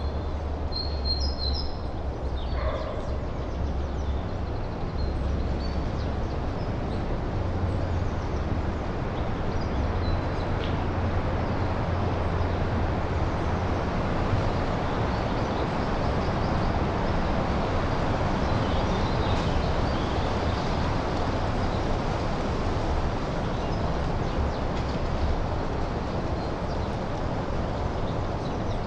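Wind rushing through pine trees: a steady noise with a deep low rumble. A few short bird chirps come in the first few seconds, and fainter ones come a little past the middle.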